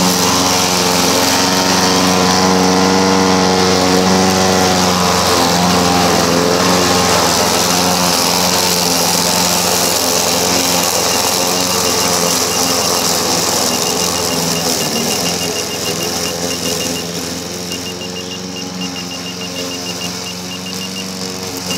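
Petrol engine of a radio-controlled self-propelled lawn mower running steadily under load as it cuts through tall grass, its pitch wavering slightly; it grows fainter over the last several seconds as the mower drives away.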